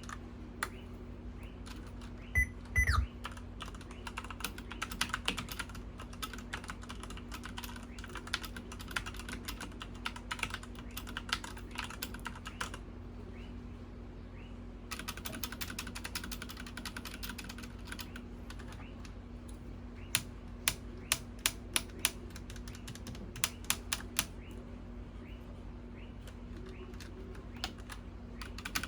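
Typing on a Redragon K551 mechanical keyboard: quick runs of sharp key clicks, stopping for about two seconds midway. A run of five evenly spaced, louder single key presses comes about two-thirds through. A couple of loud low thumps come near the start, and a steady low hum sits underneath.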